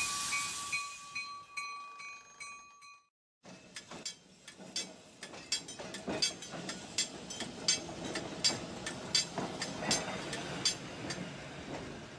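A vintage red electric streetcar rolling past, its wheels clicking sharply and unevenly over the rail joints over a low rumble, fading near the end. Before a short break at the start, a bilevel electric commuter car passes with steady high tones pulsing regularly.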